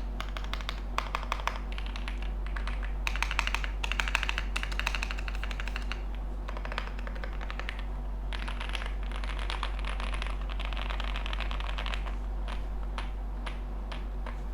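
Typing on a Zoom65 mechanical keyboard with a polycarbonate plate, stock JWK Durock V2 switches, stock keycaps and full foam: fast runs of keystroke clicks, with a short pause about six seconds in and only a few scattered keystrokes near the end.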